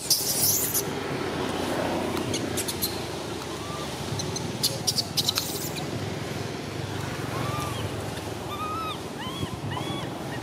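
Newborn long-tailed macaque giving a run of short, high, arching squeaks over the last few seconds. Scattered clicks and crackles come in the first half, over a steady windy background.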